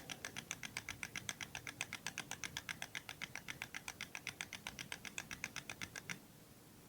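Rapid, even mechanical clicking, about eight clicks a second, that stops abruptly about six seconds in.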